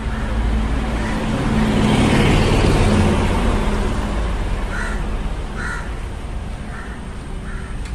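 A vehicle passing by, building to its loudest about two to three seconds in and then fading, while a crow caws repeatedly in short calls.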